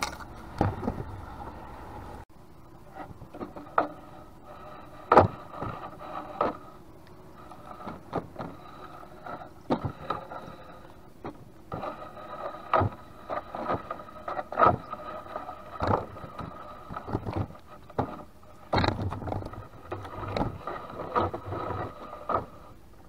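Gill net being hauled by hand into a small boat: irregular knocks and scrapes as the wet net and its weights drag over the gunwale and hit the hull.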